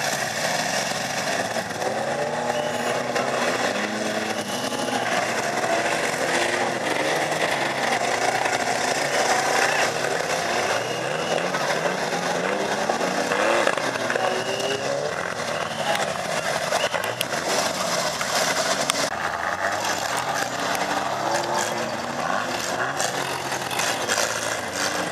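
Several banger race cars' engines revving and running hard together, their pitch rising and falling as they accelerate and lift off around the dirt track, with a few sharp knocks mixed in.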